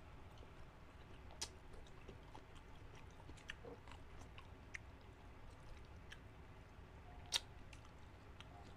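Faint close-up chewing with scattered small clicks, and one sharper click about seven seconds in.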